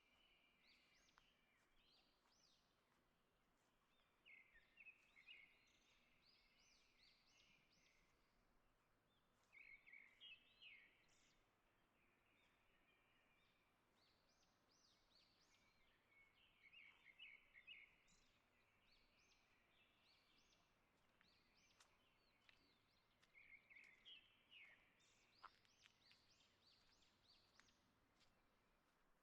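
Faint songbird song: short, quick phrases of high notes repeated about every six seconds over a quiet, steady outdoor hiss.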